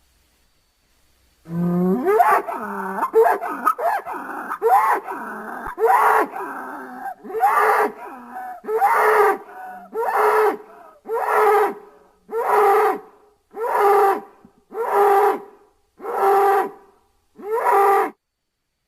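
Animated bull character's vocal sound effects: a run of calls that bend up and down in pitch for about five seconds, then a steady series of about nine evenly spaced calls, roughly one a second, each on the same pitch.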